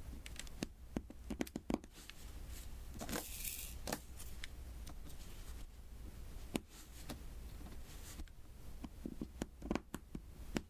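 Light taps and clicks of diamond-painting work close to the microphone: drills being tapped onto the sticky canvas, with a short scratchy rustle about three seconds in.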